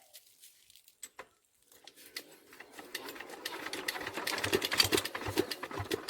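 Old Kirloskar diesel engine being hand-cranked, turning over with a rhythmic chuffing that speeds up to a few strokes a second and then dies away without the engine firing: a failed start.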